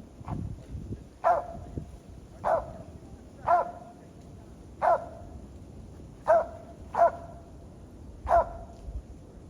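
Squirrel dog barking treed at the base of a tree: about seven short, sharp barks, roughly one a second.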